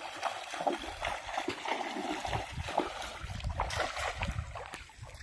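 Water splashing as a cast net is thrown in a shallow river: wading splashes at first, then the weighted edge of the net hitting the water in a spread of small splashes a little over halfway through.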